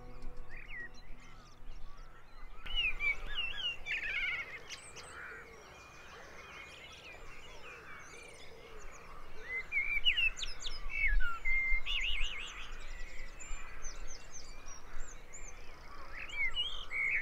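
Dawn chorus of several small birds chirping and singing over and over, with a low wind rumble on the microphone.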